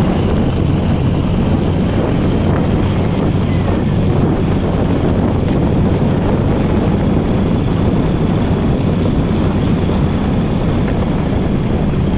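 Motorcycle cruising at a steady speed: its engine running evenly under a constant rush of wind on the microphone.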